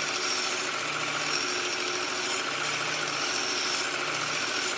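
Work Sharp Ken Onion Elite belt grinder running steadily while its abrasive belt grinds the steel knife blade, with a hiss that swells and fades as the blade is pressed on in passes, reshaping a broken knife tip.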